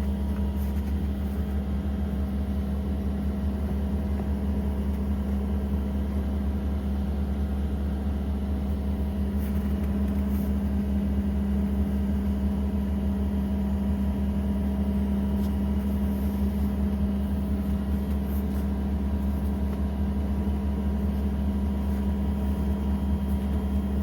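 An engine running steadily at idle: a constant, unchanging low hum.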